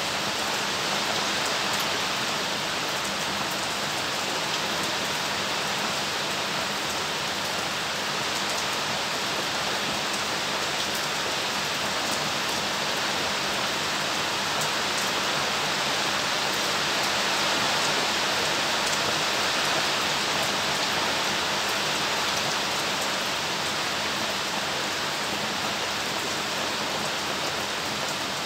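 Steady rain falling, a dense even hiss with faint scattered ticks of individual drops.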